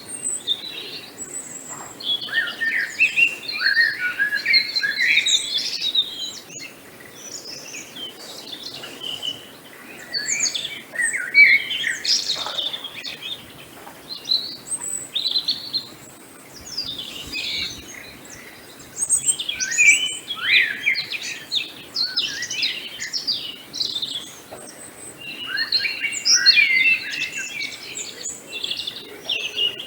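Several songbirds chirping and singing in a morning chorus, busy spells of overlapping high chirps and warbles alternating with quieter gaps, over a faint steady outdoor hiss.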